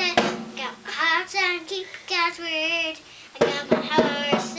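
A young boy singing a song aloud from a picture book in a high child's voice, holding notes with a wavering pitch. He breaks off briefly about three seconds in, then carries on.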